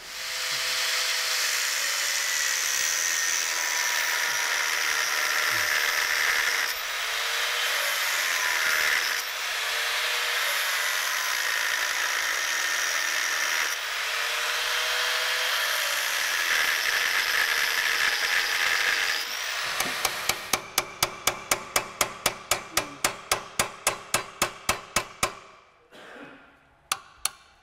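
Gas blowtorch hissing steadily as it heats a seized aluminium insert corroded onto a shock absorber shaft. Near the end it stops, and a fast, even run of clicks follows, about five a second.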